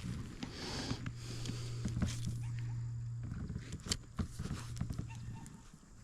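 A few scattered hollow knocks and taps on a kayak as a freshly landed small fish is handled, over a steady low hum.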